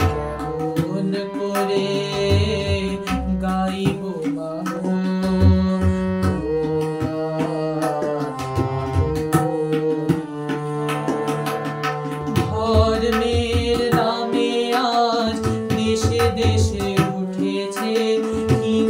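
Male voice singing a Bengali devotional song in long, bending melodic lines, over a hand-pumped harmonium's sustained reed chords. A drum keeps a steady beat underneath.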